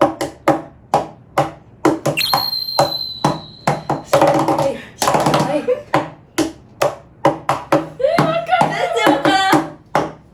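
Hands tapping out a steady beat on a desk, about two taps a second, played as a song's rhythm. A high steady tone sounds for about two seconds early on the beat, and voice sounds join near the end.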